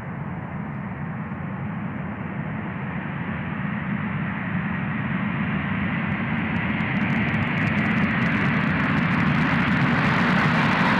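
C-17 Globemaster III's four turbofan engines at takeoff power as the transport rolls down a dusty runway toward the microphone and lifts off near the end. A steady jet noise that grows louder and brighter throughout, with a crackle coming in over the last few seconds.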